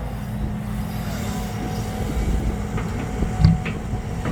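Steady low rumble of a vehicle engine and road noise while driving, with a few faint knocks about three and a half seconds in.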